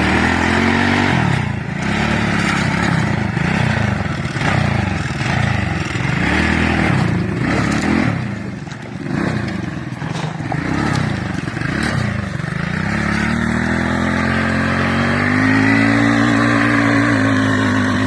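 Small off-road vehicle engine revved up and down over and over, about once a second, then climbing to a higher speed and holding there for the last few seconds.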